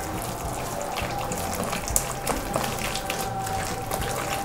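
A bare hand squeezing and stirring wet ragi (finger millet) dosa batter in a bowl: uneven wet squelching and sloshing as the flour, buttermilk and water are worked together.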